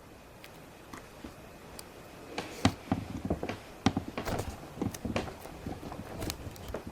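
Plastic Play-Doh molds and tools being handled while yellow dough is shaped: irregular clicks, taps and knocks of plastic on plastic and on the table, busier from about two seconds in.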